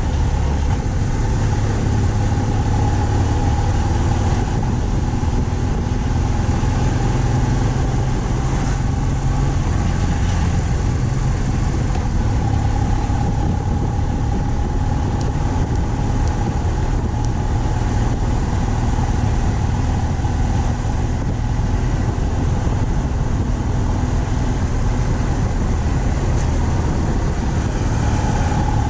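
BMW R 1200 C's boxer twin engine running steadily under way at cruising speed, its note shifting slightly a few times.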